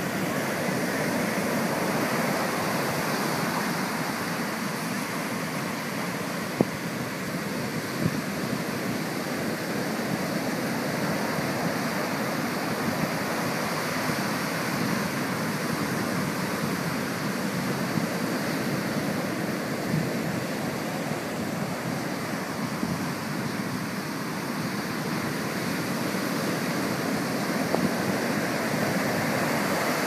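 Pacific Ocean surf breaking and washing up over a sandy beach, a steady, unbroken wash of water noise. One brief sharp click about six and a half seconds in.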